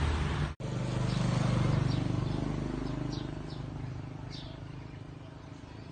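A motor vehicle's engine hum swells and then slowly fades away as it passes. Short, high, falling bird chirps come in over it from about halfway through.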